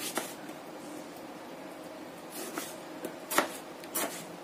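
Knife cutting a tomato on a plastic cutting board: a light knock of the blade at the start, then two sharper knocks near the end.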